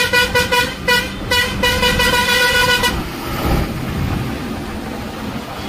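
Vehicle horn honking: a quick run of short toots, then one held blast of about a second and a half that stops about three seconds in, over the noise of street traffic and a running engine.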